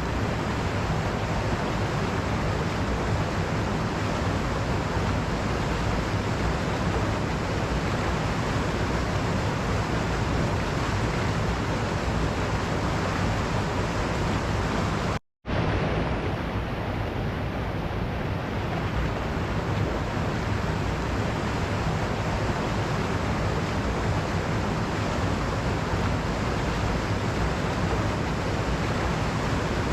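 Waterfall: a steady, dense rush of falling water. The sound cuts out completely for a split second about halfway through, then resumes.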